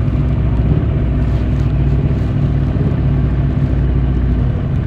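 Yamaha YZF-R1's 1,000 cc crossplane inline-four running through its stock exhaust, holding a steady engine speed.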